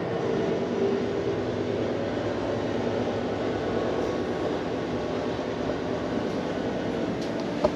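Steady mechanical drone inside a steel submarine hull, from an unseen source that the visitor hears as something running. A single sharp click comes near the end.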